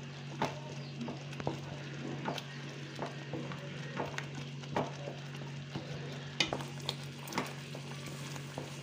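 Wooden spatula stirring thick papaya purée frying in ghee in a non-stick pan: a soft sizzle with irregular scrapes and taps of the spatula against the pan, over a steady low hum.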